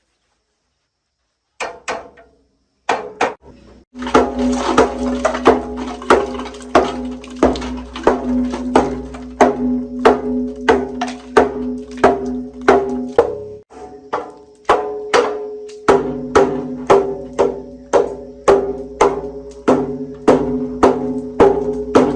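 Music with a steady percussive beat, about two struck beats a second over held pitched notes, starting after a second and a half of silence with a few scattered hits.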